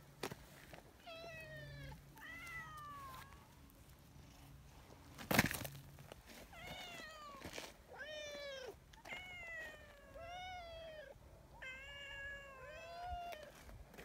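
A brown tabby cat meowing insistently: about eight calls, each arching up and then falling in pitch, two near the start and a run of six in the second half. A single sharp rustling knock about five seconds in is the loudest sound.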